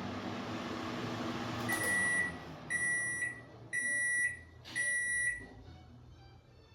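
Microwave-oven control panel, used as a timer, ending its countdown: a steady hum cuts off about a second and a half in, and the panel beeps four times at one high pitch, about once a second, signalling that the set time is up and the load is switched off.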